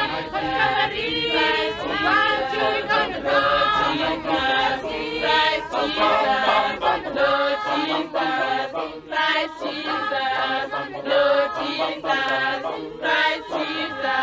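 Mixed choir of schoolgirls and schoolboys singing unaccompanied, several voices in harmony.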